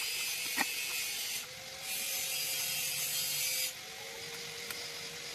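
Hex key turning a small set screw on a metal drill stand's carriage, giving a few light metallic clicks, over a steady high hiss that drops away briefly twice.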